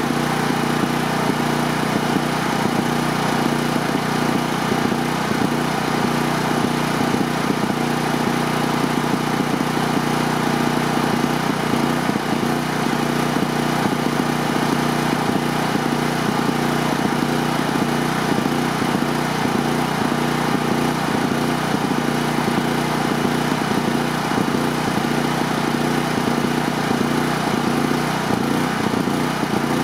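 Gasoline portable generator (GP-9500EB, 9500 W surge / 7500 W rated, electric start) running at a steady, constant engine speed.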